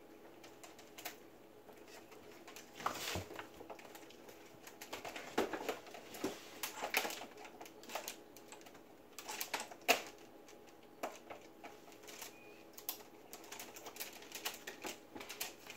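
Faint, irregular soft clicks and smacks, sometimes a few in quick succession, from a java macaque grooming a dog's face and fur, over a faint steady hum.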